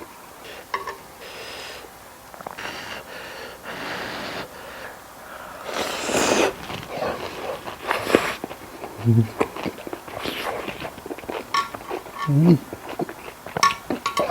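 Someone eating close to the microphone: chewing, with sharp sniffs and heavy breaths through the nose, a few light clicks, and two short low hums about 9 and 12 seconds in.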